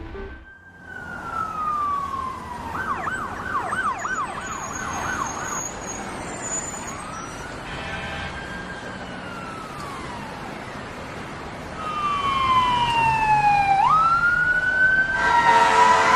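Emergency vehicle sirens: a falling wail, then a fast yelp for a few seconds, a slow rise and fall, and another falling wail that jumps back up. Near the end a louder, fuller siren comes in.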